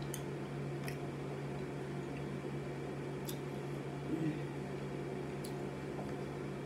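Faint wet chewing and mouth sounds of someone eating a turkey meatball, with a few small sharp clicks spread through, over a steady low hum.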